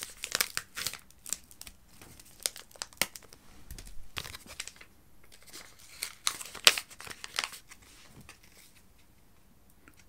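Foil sachet of drink powder crinkling and being torn open by hand: a run of sharp crackles over the first few seconds, another loud cluster about six to seven seconds in, then it goes quiet.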